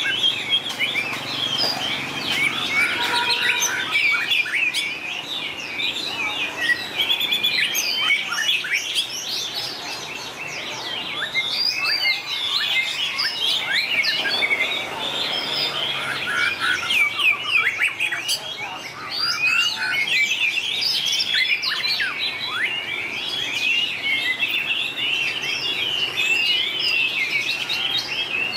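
White-rumped shamas singing against each other: a dense, unbroken run of fast-changing whistles, chirps and trills.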